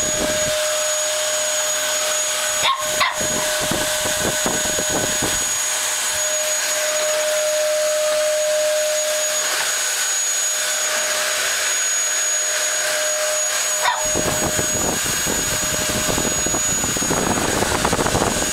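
Vacuum cleaner running steadily with a constant whine, while a Lhasa Apso puppy barks a few times.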